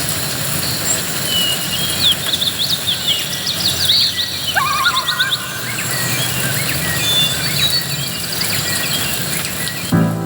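Several birds chirping, with many quick, short rising and falling notes, busiest in the first half, over a steady outdoor background hiss. Music cuts in abruptly near the end.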